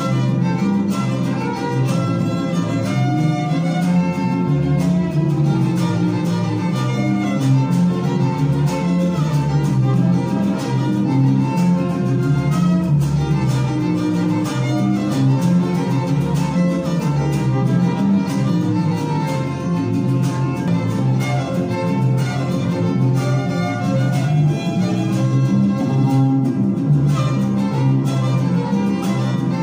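Two violins playing an instrumental tune in the Huasteca style, backed by a strummed small guitar and an electric bass, which carries a steady low line. The music plays without a break and with no singing.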